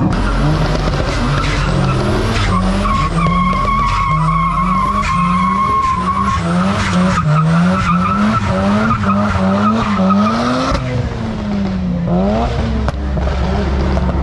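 A car doing a burnout: the engine revs rise and fall in quick repeated pulses, about two a second, while the tyres squeal in a steady high tone that fades out about eleven seconds in.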